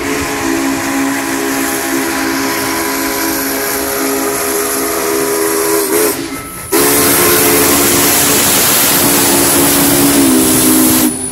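Whistle of the 1944 Union Pacific 844 steam locomotive blowing long, loud blasts, a chord of several notes sounding together over a steady steam hiss. It breaks off briefly about six seconds in, then sounds again, and its pitch sags a little near the end.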